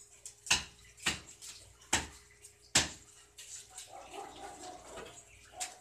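Four sharp knocks in under three seconds, then lighter clatter: hard tapping of a wooden cone roller and metal at a wafer-cone (barquillo) iron.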